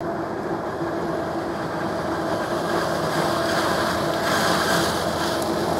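970 hp John Deere 9900i self-propelled forage harvester running at work in maize: a steady machine drone with a constant hum, and a rush of hiss that swells about three seconds in.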